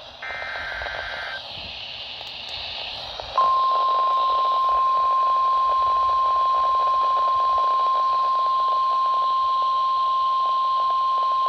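Midland weather radio on NOAA Weather Radio (162.500 MHz) sounding an alert: a brief burst of paired data tones, the coded alert header, then a few seconds of receiver hiss, then about three and a half seconds in the loud, steady single-pitch 1050 Hz warning alarm tone begins and holds. The tone signals that a warning, here a severe thunderstorm warning, is about to be broadcast.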